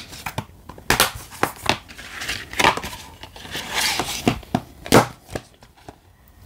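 Plastic Blu-ray case being handled and closed by hand: a string of clicks and plastic rubbing noises, with sharp clicks about a second in and near five seconds.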